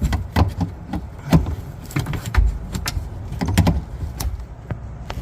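Irregular clicks and knocks of a metal pick prying at a plastic part inside a pickup truck's door, with a few dull thumps against the door.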